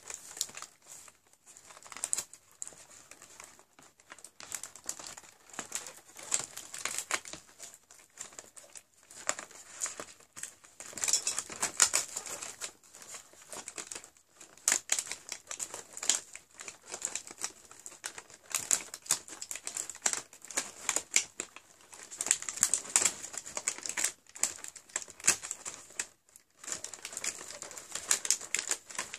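Cardboard and packaging crinkling and rustling in irregular bursts as a toiletry advent calendar door is pried open and the item inside is handled.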